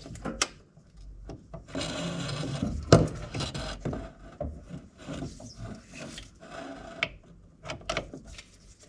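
Socket wrench on a long extension tightening the bolts of a gearbox differential end cover: irregular metallic clicks and knocks, a scraping, rasping stretch about two seconds in, and a sharp knock about three seconds in.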